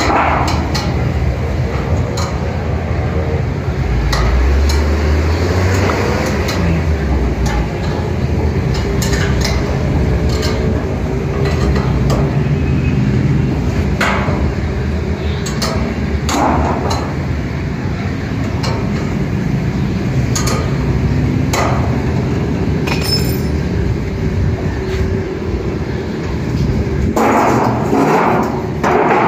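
Light metal clinks and taps as the support rods and feed holder of a 4-foot satellite dish are fitted together by hand, over a steady low background noise. A louder spell of noise comes near the end.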